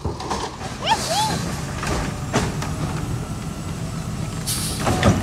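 Natural-gas automated side-loader garbage truck running, its engine humming steadily under several clanks and knocks from the arm and body. A short squeal about a second in, and a loud hiss near the end like an air brake release.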